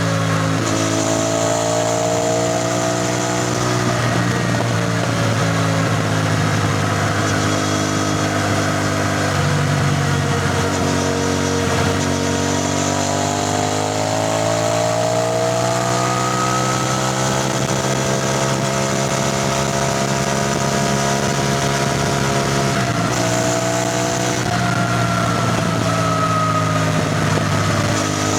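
CFMoto 450NK's parallel-twin engine running under way on the road. The engine note holds steady for long stretches, and a few times it breaks briefly and climbs slowly in pitch again, as with gear changes and acceleration.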